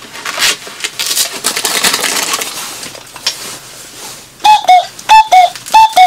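Small wooden bird calls clattering as a hand sorts through a basket of them. Then, about four and a half seconds in, one call is blown: three two-note whistles, each a higher note followed by a lower one, in the falling pattern of a cuckoo imitation.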